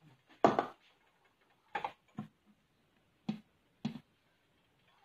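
Stainless steel cookware being handled on the stove: five sharp, irregularly spaced clinks and knocks, the first about half a second in being the loudest.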